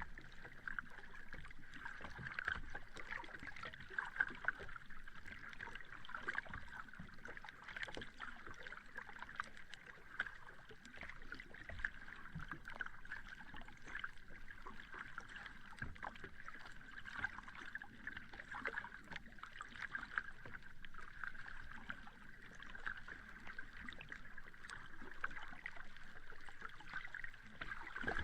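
Sea water lapping gently and steadily, with a fine crackle of small splashes and no big breaking waves.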